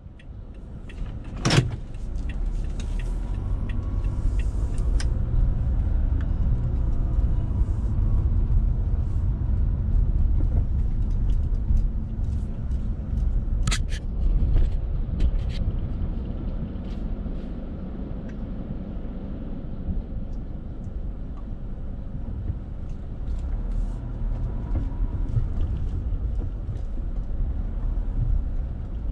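Car cabin noise while driving slowly in city traffic: a steady low rumble of engine and tyres, with two sharp clicks, one near the start and one about halfway through.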